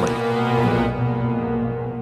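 Dark, ominous background music: a sustained held chord of synthesizer-like tones.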